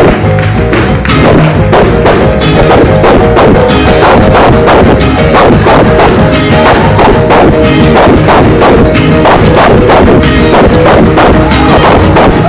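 Loud, fast church music with tambourine and drums over a steady keyboard or organ chord: Pentecostal shout music for a praise break.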